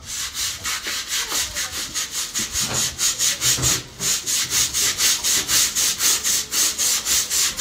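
Stiff-bristled deck brush scrubbing a wet wooden plank in quick back-and-forth strokes, about four a second, with a brief pause about halfway.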